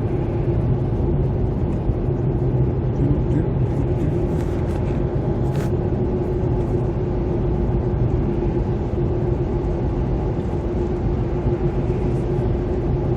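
Steady road and engine noise of a car driving, heard from inside the cabin: an even low rumble with a constant hum.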